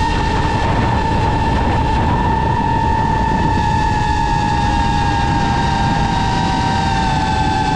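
DJI FPV drone's motors and propellers whining steadily in flight, with wind rumble on the onboard microphone. The whine sinks slightly in pitch over the last few seconds.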